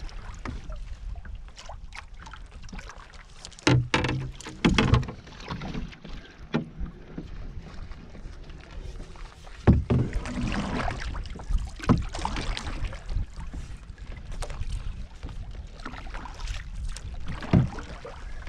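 Canoe paddling with a wooden single-blade paddle: repeated strokes dipping and pulling through the water, with a few louder strokes about 4, 10 and 17 seconds in, over a steady low rumble.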